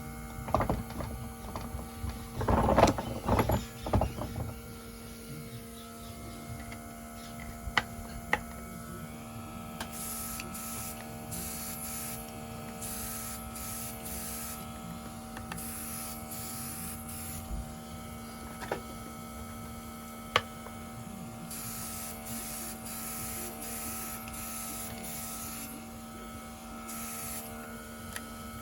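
Small nail-art airbrush compressor running with a steady hum, while the airbrush hisses in short repeated spurts in two stretches as paint is sprayed. Clattering knocks in the first few seconds and a few sharp clicks later.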